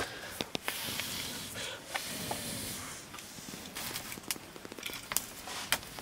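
Open wood fire crackling, with scattered sharp pops and a hiss during the first few seconds.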